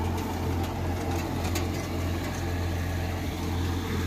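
John Deere 5060E tractor's turbocharged diesel engine running steadily under load, together with the churning of the 8-foot Landforce super seeder it drives through rice stubble. The engine drone holds an even pitch without labouring.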